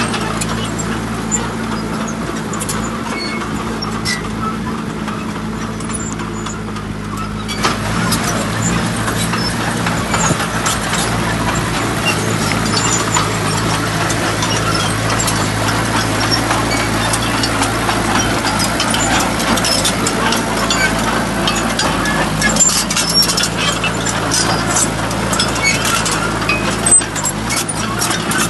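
Heavy truck engine running steadily, with a rougher, louder noise joining it about eight seconds in and small clicks and knocks throughout.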